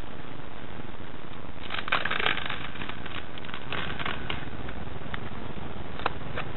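Duct tape ripping away from a galvanised steel railing and pulling off peeling paint: a dense burst of crackling about two seconds in, then scattered crackles and one sharp click near the end, over a steady background hiss.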